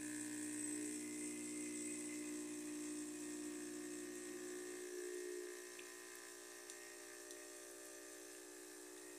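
Oster Prima Latte espresso machine's water pump running with a steady hum as it pushes water through, a little quieter from about halfway. The pump running shows the repaired control board is driving the machine again.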